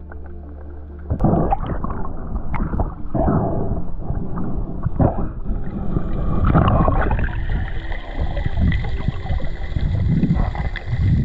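Muffled underwater sound picked up by a diver's camera: irregular low rushing and gurgling of water as he swims, surging and easing.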